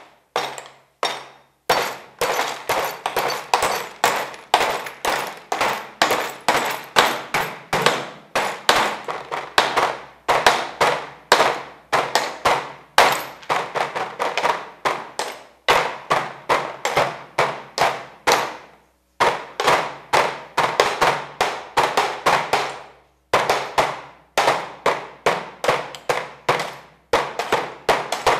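Hammer striking a sheet of glass again and again, about two to three blows a second, each a sharp knock that dies away quickly, with a few short breaks between runs of blows.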